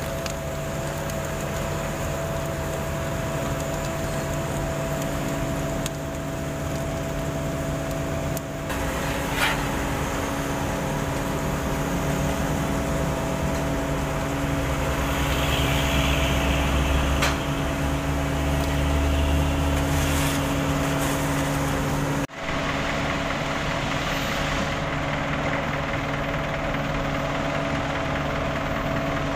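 Diesel engine of a Sumitomo asphalt paver running steadily with a constant hum, with a few sharp knocks from the hopper and conveyor as the hot mix is fed. The sound drops out for an instant about two-thirds through, then the engine hum carries on.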